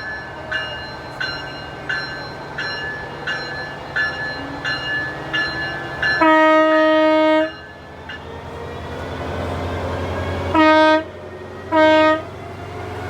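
A bell rings about twice a second, then stops as an air horn sounds one steady note. The horn gives one long blast of over a second, then two short blasts. A low train rumble grows louder underneath.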